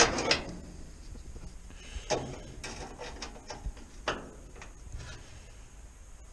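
Handheld resistance spot welder fired in very short bursts on the thin steel of a classic Mini's rear window frame, with a few sharp cracks: the loudest right at the start, others about two and four seconds in, and smaller clicks between. The fires are kept short because longer ones burn holes through the panel.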